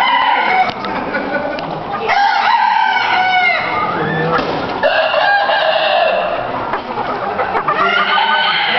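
Many caged chickens: several roosters crowing over one another, with hens clucking in between.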